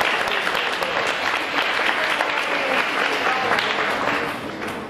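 Applause: many hands clapping together, with voices mixed in, dying away about four seconds in.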